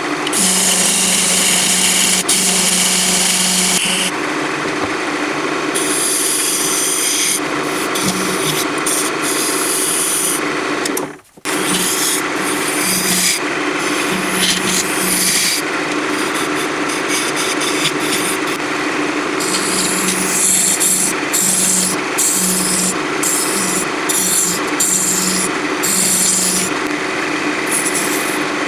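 Wood lathe spinning an apple wood blank while a hand-held turning tool cuts it: a continuous scraping hiss that swells and eases as the tool bites, over the lathe motor's steady hum. The sound drops out for a moment about eleven seconds in.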